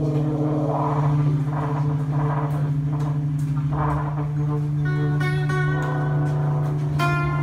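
Free improvisation by alto saxophone, trumpet and acoustic guitar: a long low held horn note with a second sustained tone above it, and sparse plucked and scraped guitar sounds. About five seconds in, a brighter, buzzier held horn note comes in.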